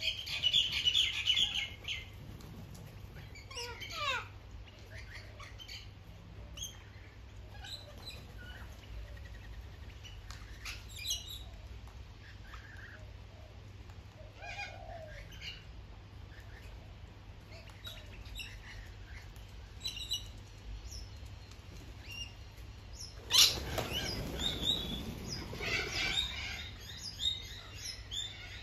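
Flock of parrots, rainbow lorikeets and white cockatoos, calling at a feeder: a loud harsh squawk at the start, scattered short chirps and screeches, then about 23 seconds in a burst of wing flapping with more calls as birds take off.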